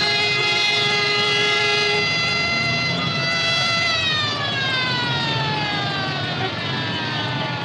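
Mechanical fire-engine siren holding a steady wail, then winding down in pitch through the second half, over a low rumble.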